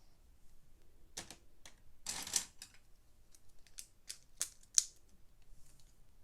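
Plastic Lego pieces being handled and snapped together: a scattered series of sharp clicks, with a brief rattle about two seconds in and the loudest click near the end.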